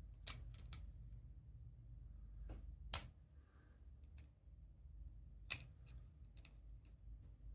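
Scattered sharp clicks and taps of small hand tools working at a circlip on a lock core, the loudest about three seconds in and again near the middle.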